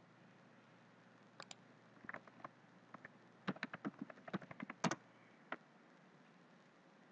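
Keystrokes on a computer keyboard as a password is typed: scattered sharp clicks, then a quick run of them about three and a half to five seconds in, with a last single click shortly after.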